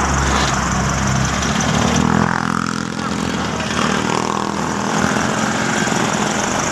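Dump truck's diesel engine running, with its pitch shifting about two seconds in.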